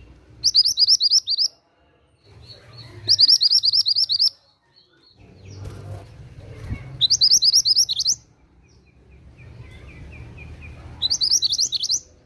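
A mantenan gunung songbird singing: four loud, high, fast trilled phrases of about a second each, every phrase a rapid run of repeated rising notes. The phrases come a few seconds apart, with faint softer twittering between them.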